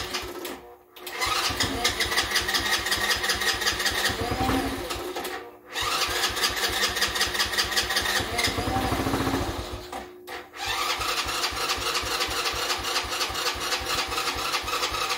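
Electric starter cranking the 2007 Redcat 90cc ATV's engine in three long bouts with short pauses between them. The cranking changes sound, which the owner puts down to the battery.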